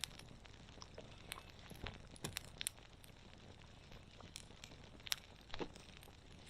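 Wood campfire crackling, with scattered sharp pops at irregular intervals over a faint steady hiss.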